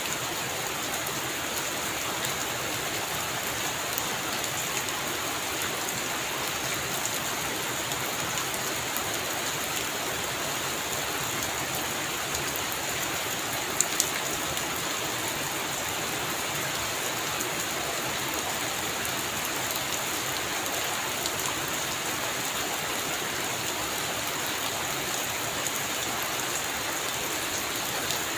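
Heavy rain falling steadily, a dense even hiss of drops. About halfway through, two sharp clicks come close together.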